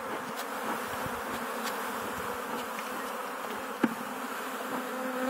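Steady buzzing of a mass of honey bees as a package of bees is emptied into a new hive body, with a single sharp knock about four seconds in.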